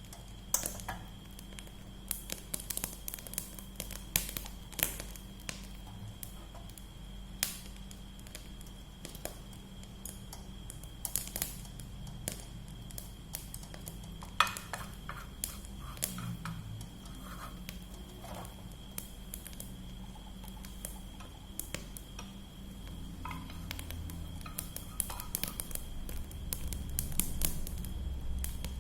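Kitchen utensils and dishes being handled: scattered sharp clinks and knocks, irregular and spread throughout, over a faint steady hum.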